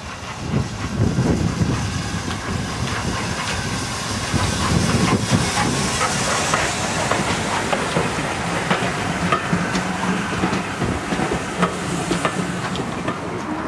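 LMS 'Jinty' 0-6-0 tank steam locomotive passing close by with a train of coaches: hissing steam as the engine goes past, then the clatter of the coaches' wheels over the rail joints.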